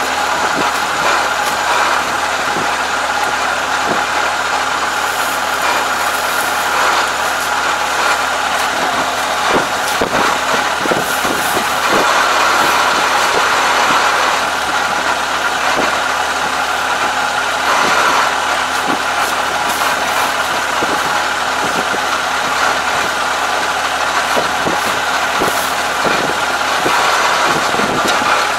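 Rice combine harvester's engine running steadily, with scattered short rustles and clicks as clogged rice straw and roots are pulled out of its rear straw cutter by hand.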